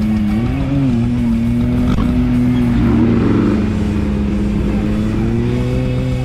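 Off-road race vehicle's engine running hard at high revs, its pitch bending up briefly about half a second in and then climbing slowly near the end.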